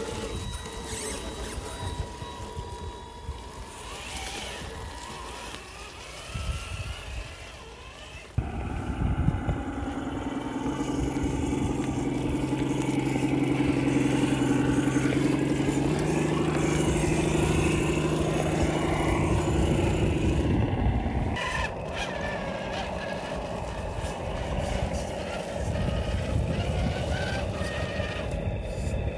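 Radio-controlled scale crawler trucks driving over rocks and dirt, their electric motors and gear trains whining. From about 8 seconds in, a louder steady whine sets in. It steps up in pitch around 16 seconds and stops around 21 seconds.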